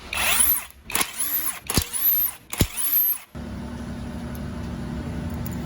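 A power tool spun up and let off four times in quick succession, each burst rising then falling in pitch. Then a steady mechanical hum takes over.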